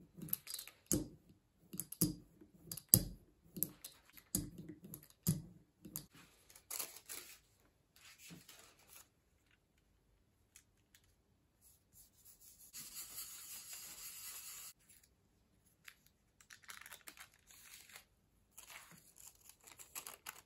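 Rubber brayer rolled back and forth over an aluminum-foil lithography plate, with a knock about once a second for the first six seconds. After that comes soft paper handling, a steady rubbing hiss for about two seconds as the paper is pressed onto the plate, and light crinkling near the end as the thin print is peeled off the foil.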